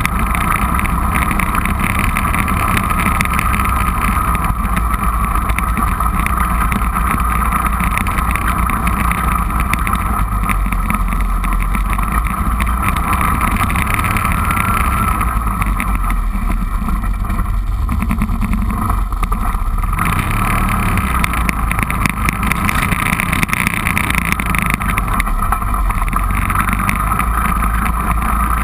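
A four-wheeler's engine running steadily while the ATV is driven across rough grass, with wind buffeting the microphone. The engine note eases off for a few seconds past the middle, then picks back up.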